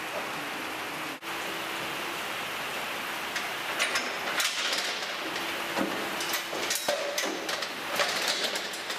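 Steady hiss, then from about three and a half seconds in a run of sharp knocks and clatter, fitting the steel gate and bars of a cattle crush being opened and rattling as the cow is let out.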